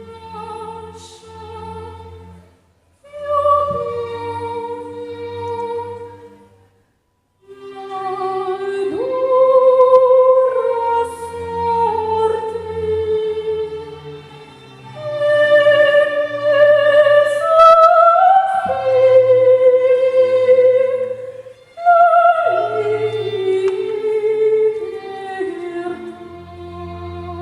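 Operatic singing: a solo voice holding long notes with vibrato over a low, sustained instrumental accompaniment. It breaks off briefly twice near the start, then sings on in longer phrases that climb and fall.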